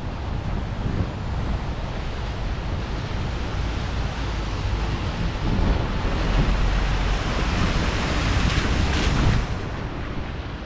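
Wind buffeting the microphone of a helmet-mounted camera on a moving bicycle, with a low road rumble underneath. It grows louder and hissier past the middle, then drops back near the end.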